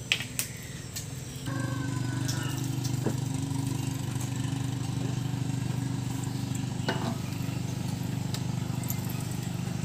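Small red boat engine running steadily, growing louder and fuller about a second and a half in, then holding a steady pitch.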